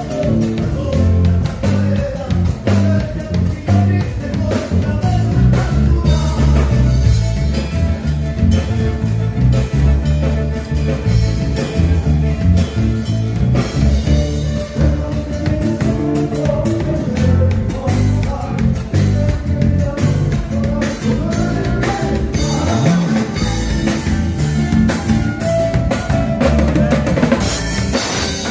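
A band playing live, with drum kit and electric bass prominent alongside acoustic guitar and violin.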